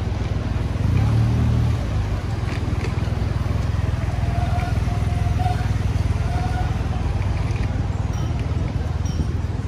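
Street traffic at a busy intersection: a steady low rumble of engines, with a motorbike engine louder for a moment about a second in.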